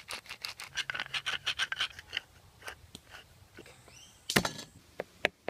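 A wooden spice grinder twisted over fish fillets, crunching with rapid clicks for about two seconds. Then a kitchen knife cutting a garlic clove on a wooden board, with one loud knock about four seconds in and a few sharp taps near the end.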